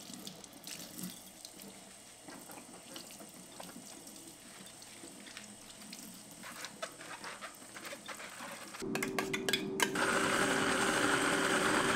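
Tap water running into a stainless steel sink while a cucumber and then lettuce are rinsed under it, with small splashes and clicks. About nine seconds in, a countertop blender motor starts with a steady hum, and a second later it runs at full speed, much louder, blending a salad dressing.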